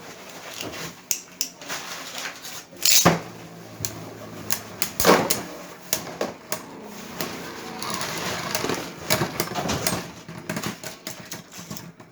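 Two Beyblade spinning tops, one of them 3D-printed, battling in a stadium: rapid clicking as they clash, with a few louder hits about three and five seconds in.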